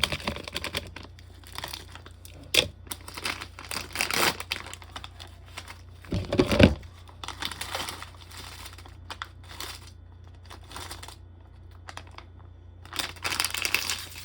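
Plastic wrappers of individually wrapped coffee candies crinkling as they are handled and sorted, in irregular rustling bursts with the loudest about halfway through and a short lull before more near the end.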